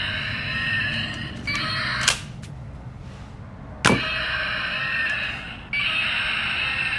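Electronic sound effects from the small speaker of a toy dart gun, starting and stopping in short stretches, with two sharp clicks about two seconds apart.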